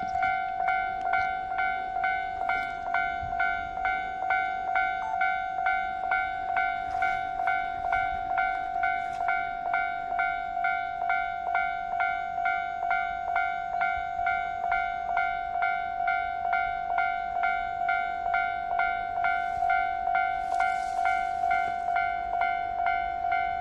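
Japanese railway level crossing warning bell ringing steadily at about two strikes a second, sounding the warning that a train is approaching.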